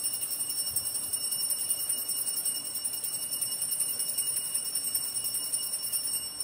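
Altar bells shaken in a continuous, even jingling ring that stops abruptly near the end. It is the ringing for the elevation of the chalice, just after the words of consecration at Mass.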